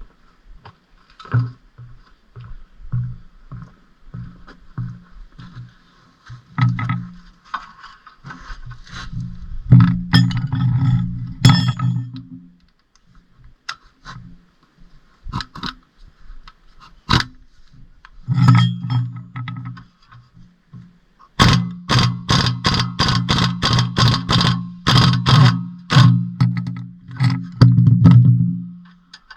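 Metal shop tools working on a car's front suspension: bursts of rapid metal strikes over a low buzz, several seconds long, with single sharp knocks between them and a long run near the end.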